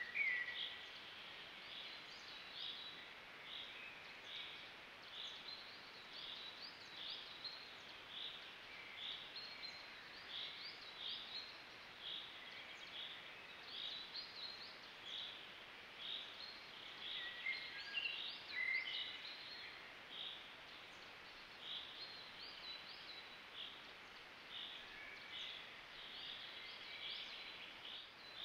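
Woodland songbirds: one bird repeats a short high note over and over, about one and a half times a second, while other birds chirp now and then, over a faint steady hiss.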